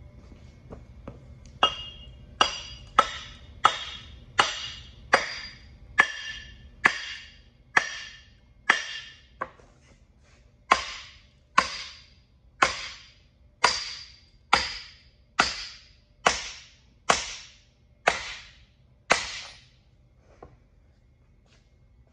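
Hammer blows on a steel truck leaf spring and its cast saddle: about twenty ringing metal strikes, one a little under every second, with a short pause halfway.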